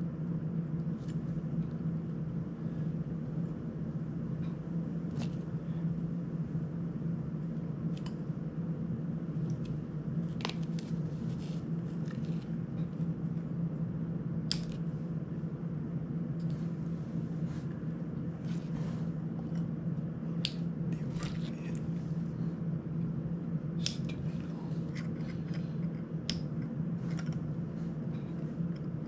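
Scattered small clicks and taps of an FPV cinewhoop drone's plastic frame, camera mount and parts being handled and fitted by hand, over a steady low hum.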